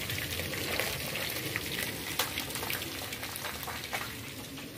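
Food frying in hot oil: a steady sizzle with scattered crackles and pops, one louder pop about two seconds in.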